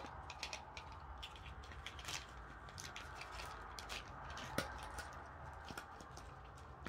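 Clear plastic bag crinkling and rustling in the hands, with small plastic tools clicking as they come out of it; one sharper click about four and a half seconds in.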